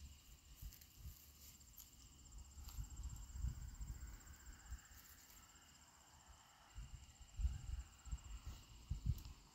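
Crickets trilling steadily at a high pitch in marsh grass, faint. Low, uneven buffeting on the microphone comes and goes, picking up again in the last few seconds.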